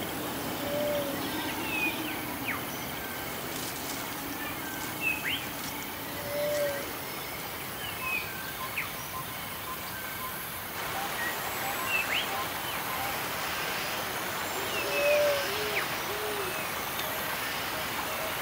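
Birds calling in a woodland soundscape: scattered short chirps, whistles and quick upward or downward sweeps, with a few lower short hooting calls in between. A steady hiss of background noise underlies them and grows a little louder about eleven seconds in.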